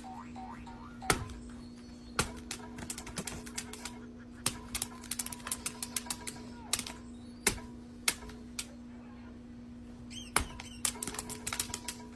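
Sharp, irregular clicks and taps, a few at first and then in quick clusters, over a steady low hum.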